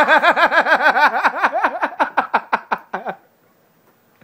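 A person laughing hard in rapid pitched pulses, about six or seven a second, slowing and dying away about three seconds in.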